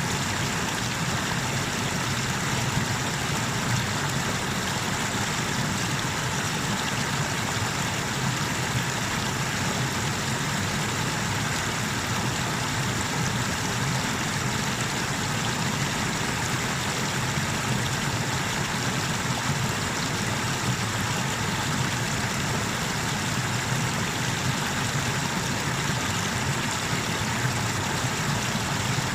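Small waterfall on the Tanew river, its water rushing steadily as an even roar.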